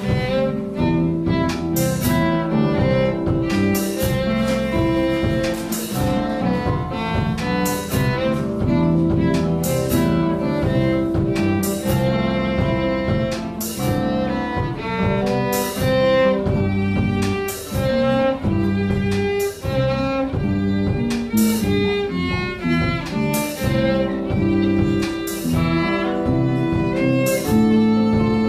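Live small-band jazz: a nylon-string acoustic guitar plays over electric bass and a drum kit, with steady cymbal and drum strokes keeping time.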